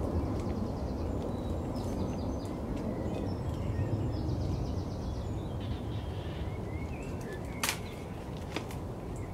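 Outdoor ambience: a steady low rumble with small birds chirping and trilling. A sharp click comes about three quarters of the way through, with a fainter one shortly after.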